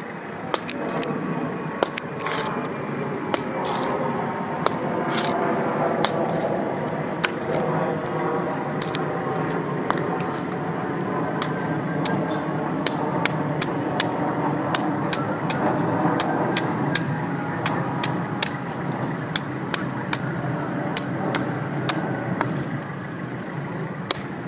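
Machete chopping the husk of a green coconut on a wooden stump: a sharp hack every second or so, over steady background noise.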